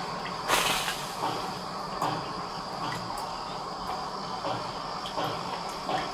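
Steady high insect chirring over a low background hum, with a brief burst of noise about half a second in.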